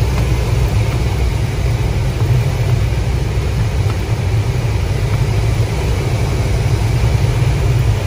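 Steady low rumble and hiss of air rushing past a sailplane's canopy in flight, heard from inside the cockpit, with rain and wet snow streaming over the canopy.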